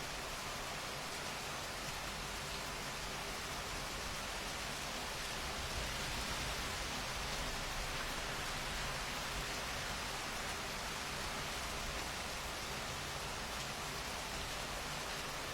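Steady rainfall, an even hiss of rain landing on surfaces, swelling slightly in the middle.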